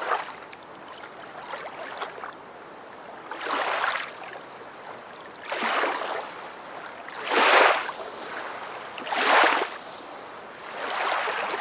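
Water sound washing in and out in swells about every two seconds, like small waves, over a low steady wash.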